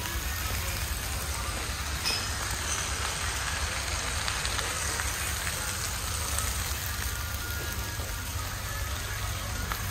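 Clay tajines sizzling over charcoal braziers: a steady, crackly, rain-like hiss with faint ticks, over a low hum.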